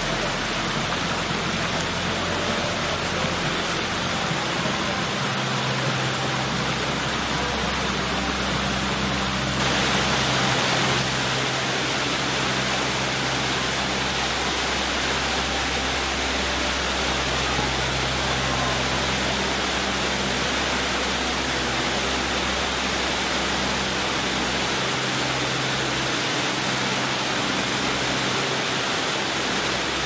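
Water in a city plaza fountain splashing and rushing in a steady, dense hiss, with a low hum underneath. The hiss turns slightly brighter about ten seconds in.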